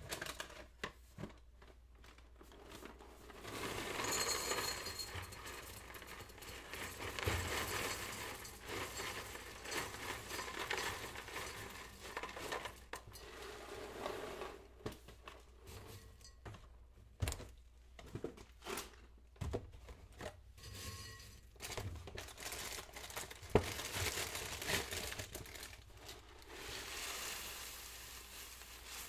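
Kitchen sounds: dishes, glassware and cutlery clinking and knocking at irregular intervals, with crinkling and rustling in between.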